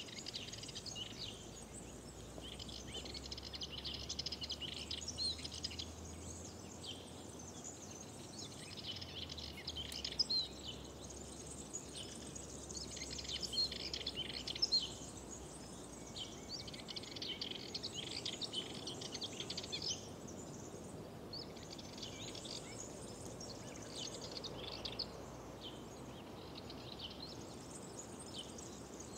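Songbirds singing in repeated bursts of quick, high chirps, one phrase after another, over a steady low background hiss.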